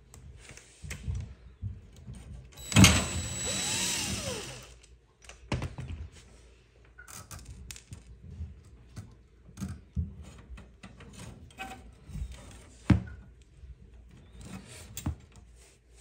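Small metal washers, nuts and wire connectors being handled and fitted onto the terminal studs of a dishwasher heating element: scattered clicks, clinks and rustles. About three seconds in there is a louder noisy stretch of about two seconds, and near the end a single sharp knock.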